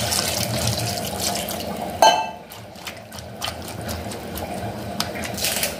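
Water being poured into a pot of cut vegetables, then a single ringing metallic clink about two seconds in, followed by softer clicks.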